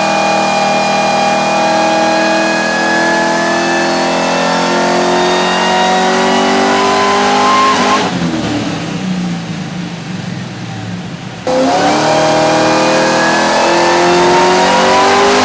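Whipple-supercharged 6.2-litre LS3 V8 pulling hard under load on a chassis dyno, its pitch climbing steadily as the revs rise. About eight seconds in it eases off and runs quieter, then comes back on suddenly for a second steadily rising pull that stops near the end.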